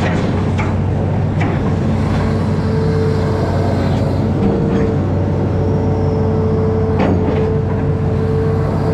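Amphibious excavator's diesel engine running steadily under working load, with a steady whine over it and a few knocks.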